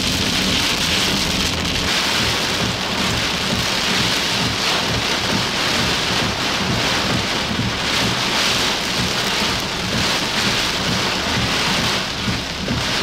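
Heavy rain pounding steadily on a vehicle's windshield and roof, heard from inside the cabin, with a low rumble underneath.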